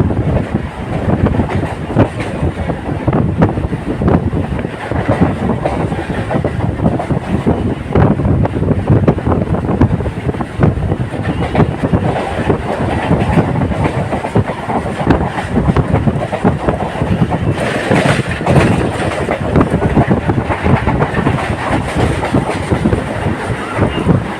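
Indian local passenger train running along the line, its wheels clattering over the rail joints with a steady rumble and many short clacks. About three quarters of the way through, a brighter, hissier rush comes in for a second or two.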